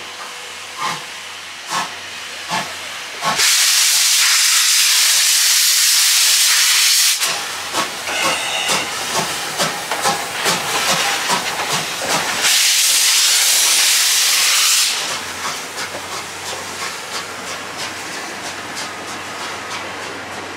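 Class C11 steam tank locomotive pulling out under steam, its exhaust chuffing slowly at first and then quickening. Two long, loud blasts of hissing steam come about three seconds in and again around twelve seconds in.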